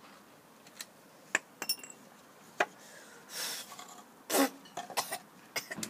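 Scattered clicks, knocks and clinks of a cordless drill and a small wooden box being handled on paving stones, one clink ringing briefly about a second and a half in. A short scraping noise comes about three and a half seconds in and a louder knock about a second later; the drill motor is not running.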